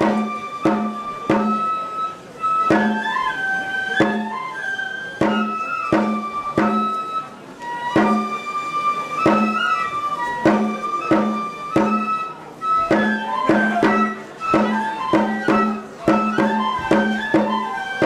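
Traditional Japanese festival music: a flute playing a melody over steady drum beats, which come faster in the last few seconds.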